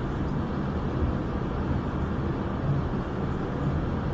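Steady airliner cabin noise in flight: the engines and rushing air heard from inside the cabin as an even, low drone with a faint hum.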